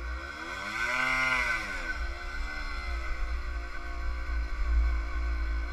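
Yamaha DT50R's 50cc two-stroke single-cylinder engine revving up and easing off about a second in, then pulling at a fairly steady speed, over a low rumble of wind on the microphone.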